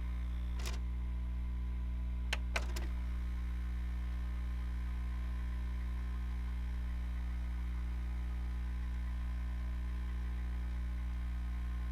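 VCR buzzing: a steady low electrical hum. There is a click about a second in and two more between two and three seconds in.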